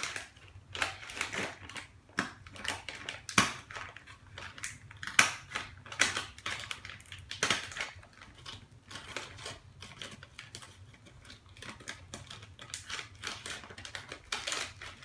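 Plastic snack-chip bag crinkling as it is handled and opened: an irregular run of crackles and rustles, with a few louder crackles about three and five seconds in.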